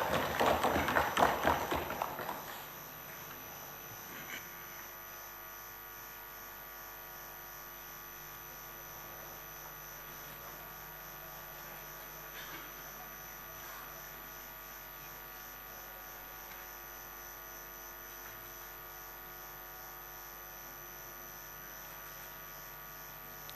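Clapping in the assembly chamber for about the first two seconds, dying away, then a steady electrical hum made of several fixed tones for the rest.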